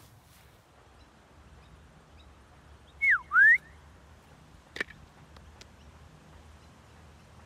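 A person's recall whistle to a dog: one loud note gliding down in pitch, then one gliding back up, about three seconds in. A small sharp click follows a couple of seconds later.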